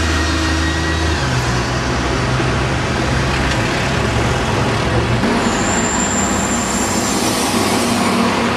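Heavy diesel vehicle engine running with a low steady hum that steps up in pitch about a second in and fades out after about five seconds. It gives way to a broad rush of traffic noise with a brief thin high whine.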